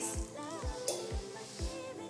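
Background pop music with a steady kick-drum beat, about two beats a second, under a melody.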